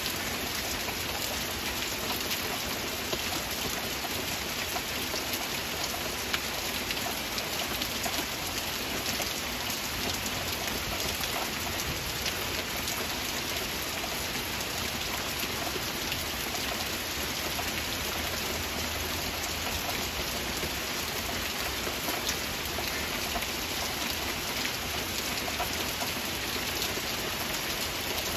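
Steady heavy rain: an even, unbroken hiss dotted with the ticks of individual drops.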